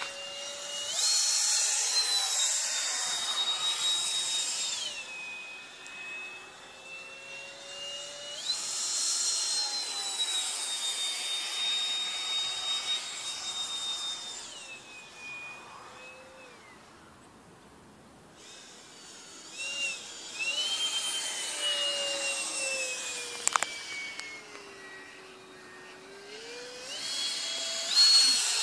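Electric ducted fan (Hobbyking 64 mm, 4300 kV) of a radio-controlled L-39 Albatros model jet whining in flight. The high-pitched whine jumps up with throttle about a second in, at about eight seconds, at about twenty seconds and near the end. Between these bursts it eases off, and it slides down in pitch as the jet passes. It is faintest about two thirds of the way through.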